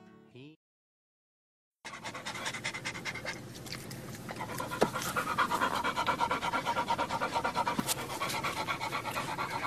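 A spaniel panting quickly and steadily close to the microphone. It starts about two seconds in, after the end of a song and a moment of silence.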